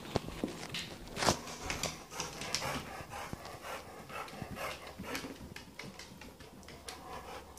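A black puppy moving about close by: its breathing and irregular short scuffs and soft knocks, a few of them sharper than the rest.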